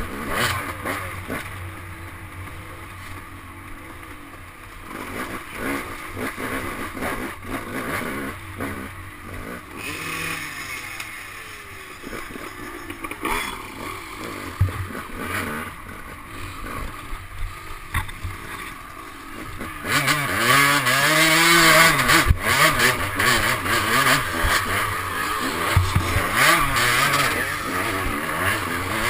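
KTM 200 two-stroke dirt bike engine revving up and down as it is ridden hard over rough woods trail, with frequent knocks and rattles from the bike. About two-thirds of the way through it gets louder, with hard revving rising and falling in pitch.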